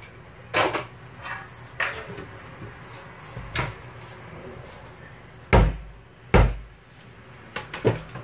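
A series of kitchen knocks and clatters off camera, irregularly spaced, with two heavier low thumps a little past the middle and a quick cluster of knocks near the end.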